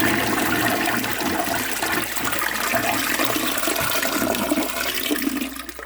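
Toilet flushing: water rushing loudly through the bowl, easing off near the end.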